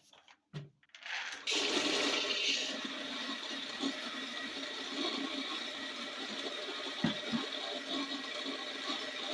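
Electric grain mill grinding whole soaked corn: the grinding noise starts about a second in, is loudest for the first second or so, then settles into a steady grind with a faint high whine. A short knock comes about seven seconds in.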